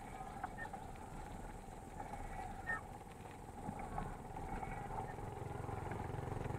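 Mountain bikes rolling on a paved road, heard through an action camera: steady road and wind noise with a few light clicks. Near the end a motorcycle engine grows louder as it approaches.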